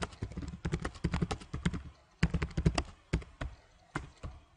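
Typing on a computer keyboard: quick runs of keystrokes with a short pause about two seconds in, thinning to scattered keystrokes near the end.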